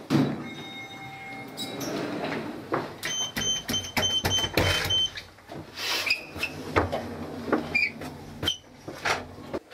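A lift's electronic signal: a short run of quick high beeps, about three a second for two seconds, among knocks and rattles of the lift doors.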